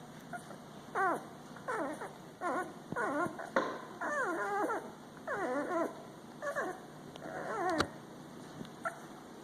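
Twelve-day-old puppies whimpering: a run of high, falling whines, roughly one a second.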